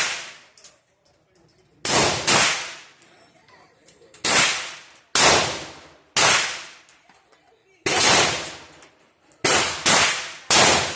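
Gunshots on a shooting range: about ten sharp reports at uneven intervals, some in quick pairs, each with a ringing tail.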